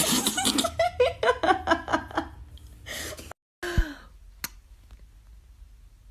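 A voice giving a rapid string of short, high-pitched calls for about two seconds, then, after a cut, a brief falling tone and a single sharp click.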